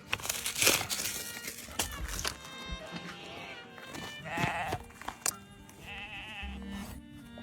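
Background music, with a sheep bleating loudly about four and a half seconds in and a shorter bleat near the end, among a few sharp knocks.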